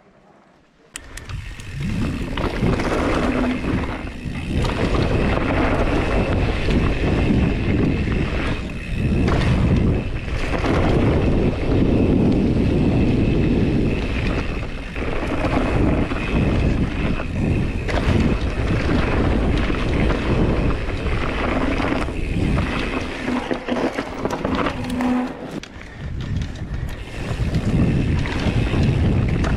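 Wind rushing over the camera microphone and tyres rumbling on a dirt trail as a full-suspension mountain bike rides downhill, with knocks and rattles from the bike over bumps. It starts suddenly about a second in and swells and eases with the rider's speed.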